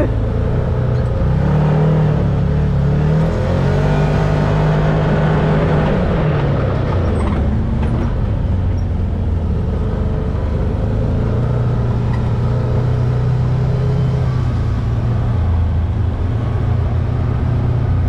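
Can-Am Maverick X3 UTV's turbocharged three-cylinder engine running under way on a dirt trail, engine speed rising and falling over the first several seconds, then holding steadier.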